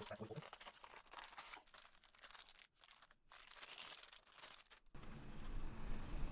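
Faint crinkling and rustling of a plastic bag and cardboard packaging as a phone case is slid out of its box and unwrapped, in short irregular bursts. About five seconds in it gives way to a steadier low hum and hiss of room tone.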